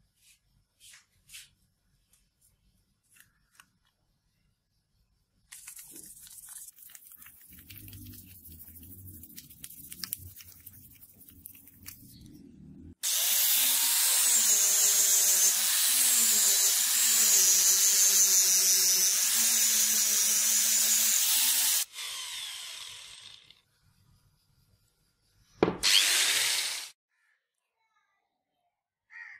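Hand-held angle grinder working on a hammer's metal handle. It runs loud for about nine seconds, its motor pitch dipping and recovering as the disc is pressed onto the metal, then winds down once switched off. Before it there are a few seconds of quieter scraping, and near the end there is one short loud burst.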